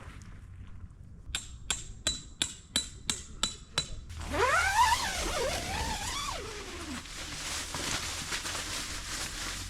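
Steady hammering of a metal tent peg: about eight ringing strikes, roughly three a second. It is followed by a louder rushing noise with a tone that slides up and then down.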